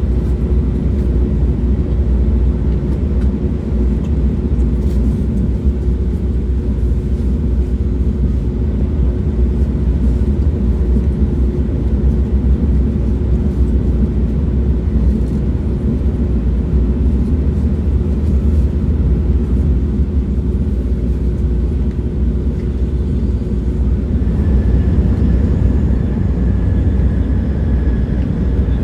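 A train running, with a steady low rumble and a faint steady hum. About 24 seconds in, a thin higher whine joins it.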